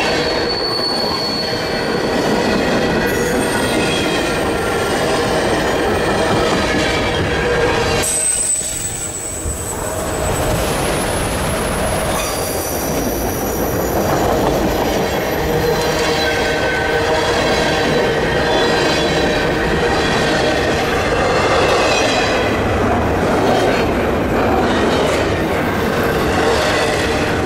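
Freight train's railcars rolling past with steady wheel-on-rail noise, and high-pitched wheel squeals at several pitches that come and go.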